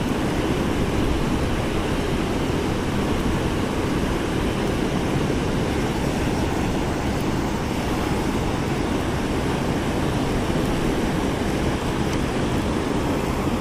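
Steady rush of river water spilling over a low stone dam and flowing past, an even unbroken noise.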